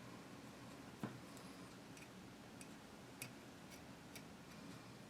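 A few faint, scattered metallic clicks and ticks of small parts being worked by hand: needle-nose pliers and a trigger spring against the rifle's trigger housing. The clearest click comes about a second in, another just past three seconds.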